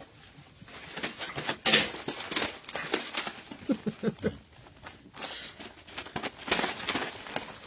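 Two pit bulls, a mother and her puppy, play-fighting: irregular scuffling, paw and body knocks on the floor, with one loud bump a couple of seconds in and a few short pitched noises a little past the middle.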